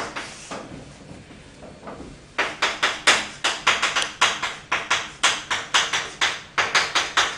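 Chalk writing on a blackboard, kanji written stroke by stroke: faint for the first two seconds, then from about two and a half seconds in a fast run of sharp chalk strokes, roughly four a second.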